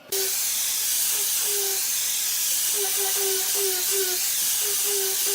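Compressed air hissing steadily from an air nozzle, switched on abruptly, with a faint whistle that comes and goes over the hiss.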